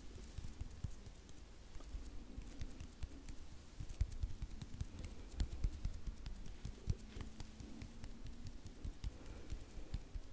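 Hand sounds: hands rubbing and pressing together, making a steady stream of quick, irregular soft clicks and taps.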